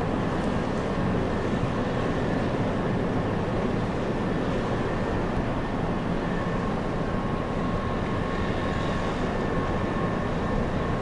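Steady low rumble of ship machinery, with a faint steady hum running through it.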